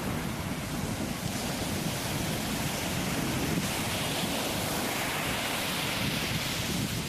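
A steady rushing noise that swells and eases, strongest around the middle.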